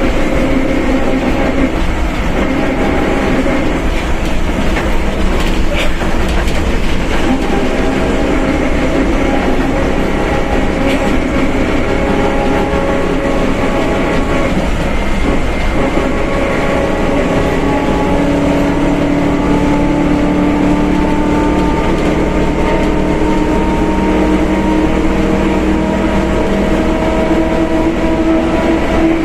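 Mercedes-Benz OF1721 BlueTec 5 bus under way, its differential roaring loud: a steady rumble with a gear whine of several tones. The whine rises slowly in pitch over the second half as road speed climbs.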